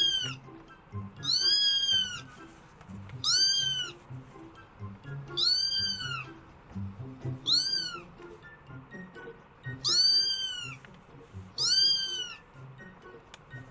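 Kitten meowing over and over: high-pitched calls that rise and fall in pitch, one about every two seconds.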